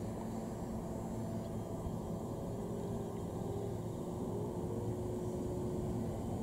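Steady hum of a JR Shikoku 7000 series electric train standing at the platform, with a faint rising electric tone about four seconds in.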